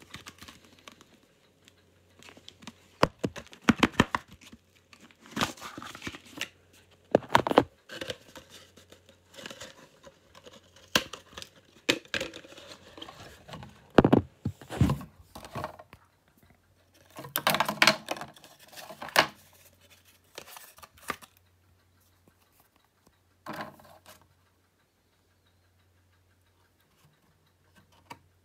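Blu-ray collection packaging being unwrapped and handled: plastic wrap tearing and crinkling, with sharp clicks and taps, in irregular bursts.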